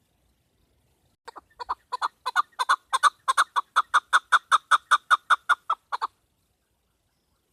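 Chukar partridge calling: a run of about twenty short clucking notes that starts slowly, quickens to about four a second and grows louder, then stops abruptly. It is a chakor call of the kind used to lure chukar when hunting, given by the uploader as a female's call.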